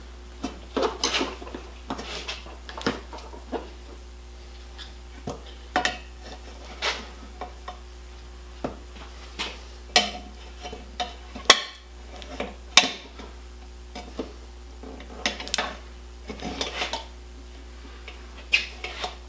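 Steel tire spoons clinking and scraping against a motorcycle wheel rim as a new tire's bead is levered on, with irregular metallic clicks throughout and two sharp clanks near the middle.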